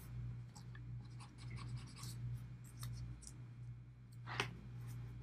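Short, scratchy strokes on drawing paper as a graphite drawing is shaded and blended by hand, with one louder stroke about four seconds in. A steady low hum runs underneath.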